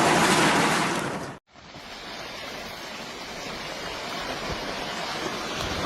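Steady loud rushing of moving water that cuts off suddenly about a second and a half in, followed by a quieter, steady rushing noise.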